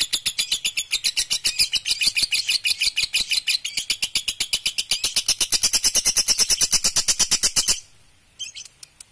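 Lovebird's long 'ngekek' song: a fast, unbroken chattering trill of high-pitched notes, about ten a second, that cuts off suddenly near the end. It is followed by a few faint scattered chirps.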